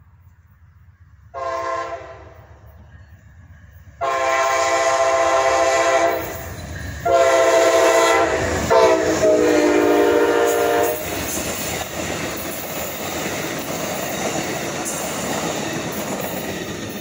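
Horn of an Amtrak GE P42DC diesel locomotive: one short blast, then long blasts as the train approaches, with the pitch dropping as the locomotive passes. The passenger cars then roll by with steady wheel-on-rail noise.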